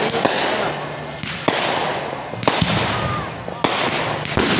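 Aerial fireworks bursting: four sharp bangs about a second apart, each followed by a crackling, hissing tail that fades.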